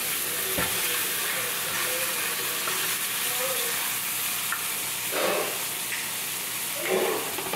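Burger patties sizzling steadily in a nonstick frying pan. A spatula scrapes and taps against the pan a few times, with short scrapes at about five and seven seconds in.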